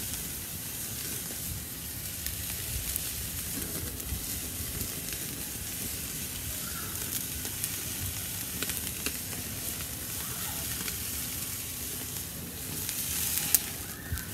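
Prime rib roast sizzling as it sears on the grate over hot charcoal, with scattered small crackles. Near the end there is a sharp clack as the roast is gripped with tongs and lifted.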